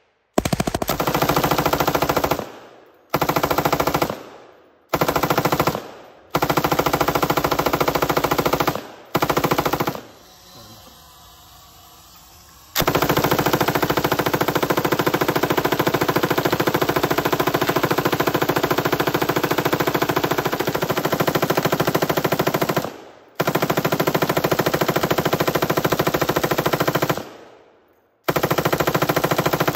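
M249 SAW light machine gun firing fully automatic 5.56 mm: several short bursts first, then long sustained bursts, the longest running about ten seconds.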